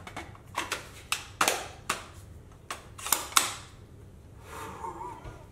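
Sharp plastic clicks and knocks as a polymer airsoft sniper rifle is handled and a part is pushed into it: about ten irregular clicks over the first three and a half seconds, then they stop.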